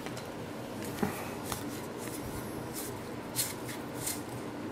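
Baseball trading cards being flipped and slid against one another: a string of short, soft swishes at uneven intervals over a faint steady hum.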